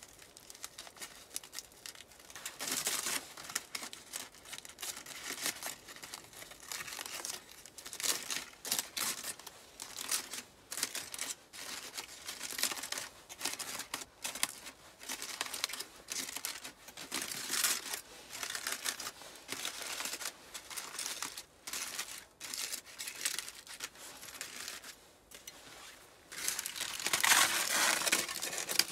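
Aluminium foil crinkling and crackling in irregular bursts as hands unwrap it from baked potatoes. It is loudest near the end.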